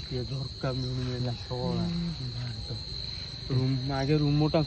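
Crickets keeping up a continuous high trill at one steady pitch, under men's low voices talking briefly now and then.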